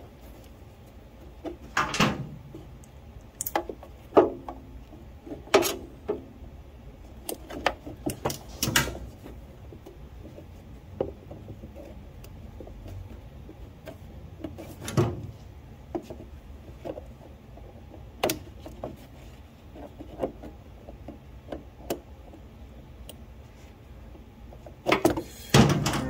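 Scattered knocks, clicks and rubbing as a rubber fuel line is pulled and pressed into place along a riding mower's frame and plastic fender.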